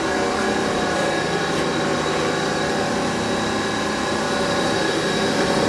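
2008 Haas SL-20 CNC lathe running with its spindle turning at about 1,000 RPM: a steady mechanical hum with a thin high whine over it.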